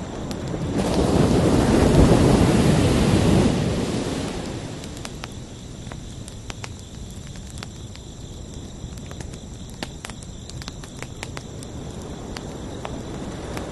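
Ocean waves breaking on a shore: a swell surges in about a second in and washes out over the next few seconds, and another begins to build near the end. Crickets chirp steadily underneath.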